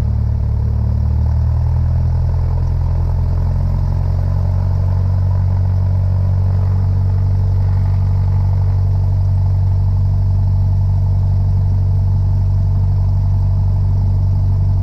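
Cessna 172 Skyhawk's piston engine and propeller running steadily at low taxi power, heard from inside the cabin as a steady low drone. About a second and a half in, the engine note shifts slightly as the power changes.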